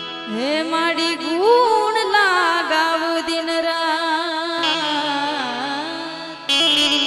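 A woman singing a devotional bhajan in a long, ornamented line that slides up and down in pitch with a wavering vibrato, over a steady held note. Near the end the accompaniment comes in suddenly louder.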